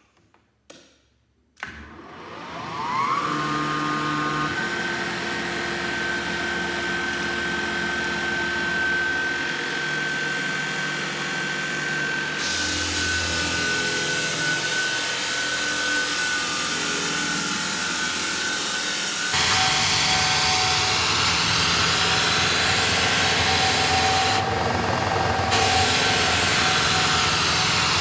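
Lägler Hummel drum floor sander's electric motor starting about a second and a half in, its whine rising to a steady running pitch. About halfway through, the sanding drum is lowered onto the wooden floor and a louder hiss of abrasive on wood joins the motor.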